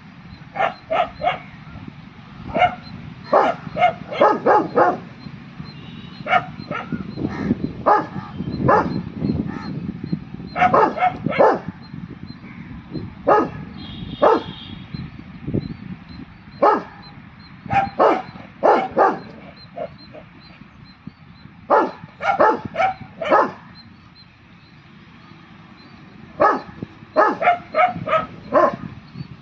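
Rottweiler barking repeatedly in quick runs of several barks, with short pauses between the runs.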